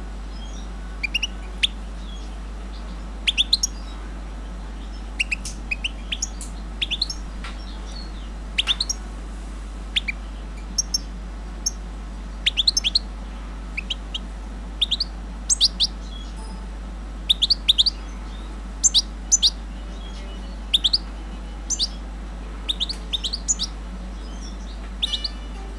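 Caged songbird giving short, sharp chirps in quick clusters of two to four, repeated every second or two.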